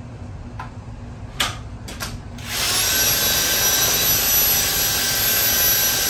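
A few light clicks, then about two and a half seconds in a cordless drill starts and runs steadily, driving a Surewinder in reverse to unwind a garage door torsion spring and let its tension off.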